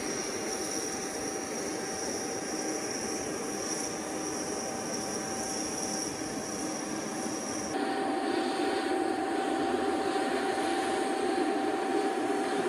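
Steady jet turbine whine: a high tone and a mid tone over a rushing noise. About eight seconds in the high tone drops out and a louder, deeper rushing noise takes over.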